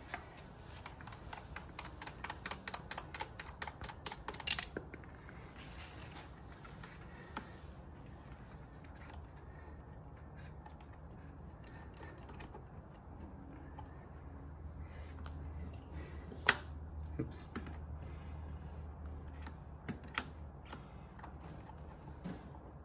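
Light clicks and small handling knocks of a hand pump's hose and threaded head being worked onto the electric unicycle's air-suspension valve: a quick run of clicks over the first few seconds, then scattered single clicks with one sharper click in the second half.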